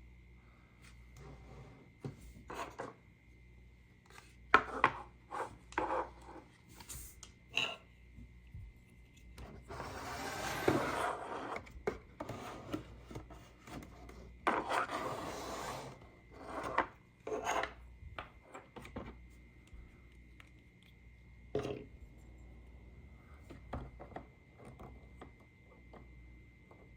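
Hands handling plastic toy parts and packaging: scattered clicks and light knocks, with two spells of rubbing, rustling scrape a few seconds apart near the middle. A faint steady high whine sits underneath.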